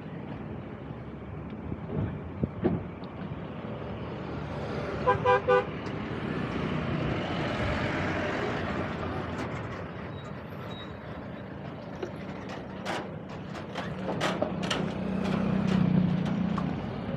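Busy city street traffic: engines and tyre rush, with a vehicle horn giving three quick beeps about five seconds in and a vehicle swelling past around eight seconds.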